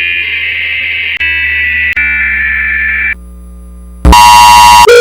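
Emergency Alert System-style alert tones, harsh and electronic: a screechy, data-like tone for about three seconds, a short low hum, then a very loud, distorted blaring alert tone from about four seconds in.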